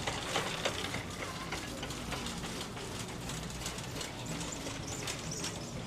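Store ambience: a steady background hum with faint scattered clicks and rattles.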